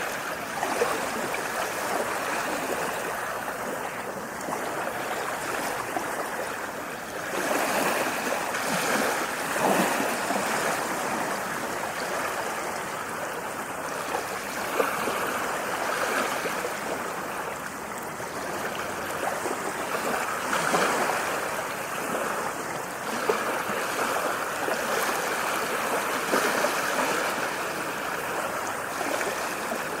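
Ocean waves: a steady rush of water that swells and eases every few seconds.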